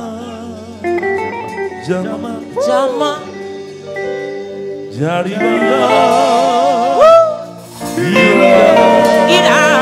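Live gospel praise music: a male lead singer sings with wavering held notes over a band of keyboard and bass guitar, growing louder about eight seconds in.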